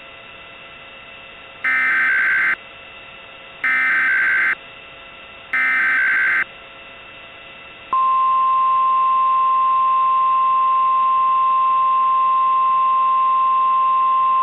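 Mock Emergency Alert System opening. Three short bursts of SAME header data tones, each just under a second and about two seconds apart, are followed about eight seconds in by the steady single-pitch National Weather Service 1050 Hz warning alarm tone. A constant radio-like hiss runs underneath.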